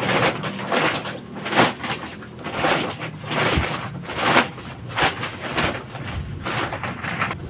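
Plastic Lego pieces being handled, in a run of irregular rattling, clattering bursts.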